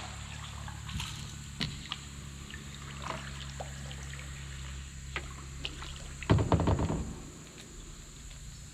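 Small water drips and ticks as a tiny smallmouth bass is reeled to the kayak, then a short burst of rapid splashing about six seconds in as the fish thrashes at the surface and is lifted out. A low steady hum runs underneath until the splashing.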